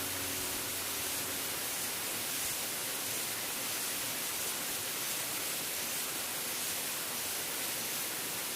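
Steady rushing of a waterfall stream's flowing water.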